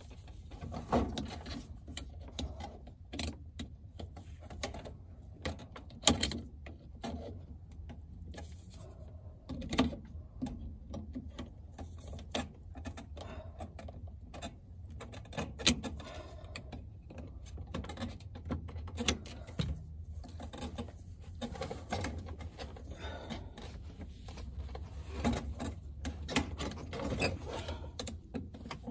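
Irregular clicks and knocks of hand work on a fuel pump assembly, a few sharper ones standing out, over a low steady hum.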